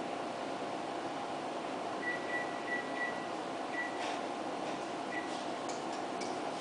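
Ultrasound scanner during a scan: a steady fan hum, with a string of short high beeps starting about two seconds in, one more beep a little later, and a few faint clicks near the end, as its controls are worked.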